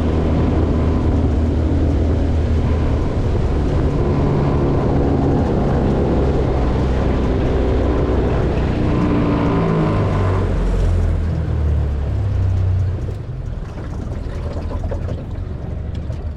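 Boat's outboard motor running steadily under way. Its pitch shifts about ten seconds in, and it runs quieter over the last few seconds.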